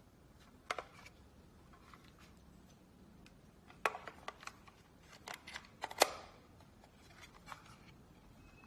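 Handling sounds from setting up a smoke alarm: scattered light clicks and taps, thickest around the middle, with the sharpest click about six seconds in.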